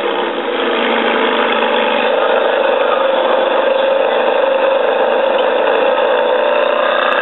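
Ferrari 599 GTB's V12 engine idling steadily, its pitch holding level with no revving.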